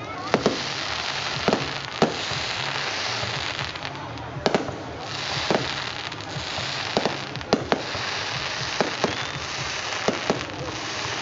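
Fireworks going off: a string of sharp, irregular bangs, roughly one a second, over a constant hiss.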